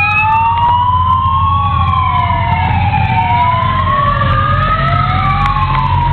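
A siren wailing, its pitch sweeping slowly up and down over a few seconds, with two tones crossing each other over a steady low rumble.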